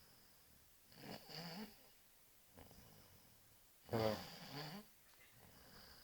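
A sleeping woman snoring: two snores about three seconds apart, the second one louder.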